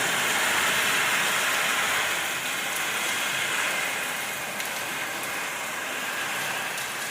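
Heavy storm rain pouring down, a steady even rush that eases a little after about two seconds.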